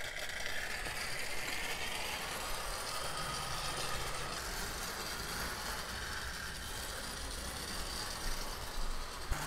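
Old 1950s HO scale model steam locomotive running on the track, pulling a train of cars: a steady, fairly faint motor whir with wheel noise on the rails.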